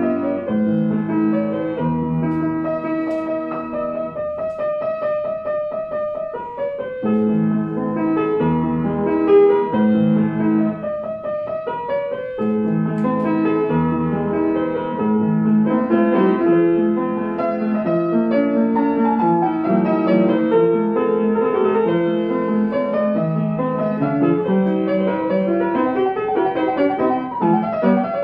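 Young Chang U121 upright piano being played: sustained chords under a melody, with two passages of rapid repeated notes.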